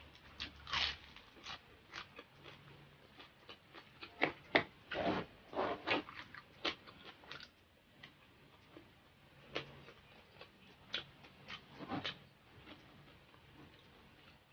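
Close-up crunching and chewing of crispy deep-fried pork skin, a run of sharp crackly crunches. They come in two bursts, the louder about four to seven seconds in and another about ten to twelve seconds in.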